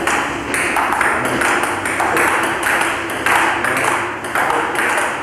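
Table tennis rally: the ball clicking off the paddles and bouncing on the table in a steady back-and-forth, about two hits a second.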